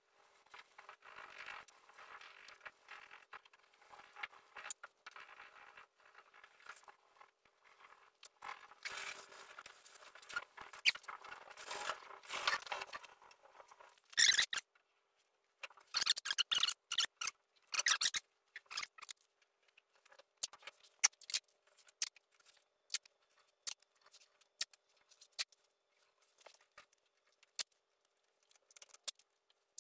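Sandpaper scraping over primer on a truck body panel, scratchy and uneven, for about the first half. After that come scattered short, sharp crackles and clicks.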